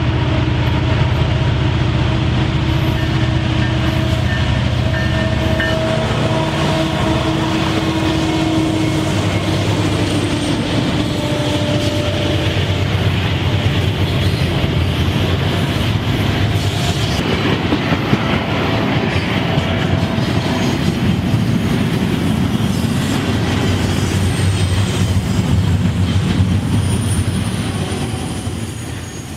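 Diesel locomotives of a double-stack container freight train passing close by, their engines giving a steady low drone, followed by the continuous rumble and rattle of the container cars rolling past on the rails. The sound fades out near the end.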